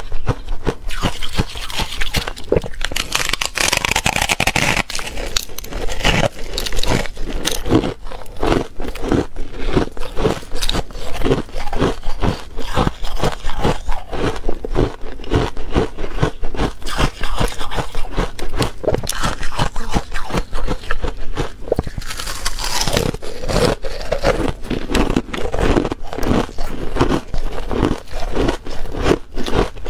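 Close-up chewing of buckwheat ice: a fast, continuous run of crisp crunches as the ice is bitten and ground between the teeth.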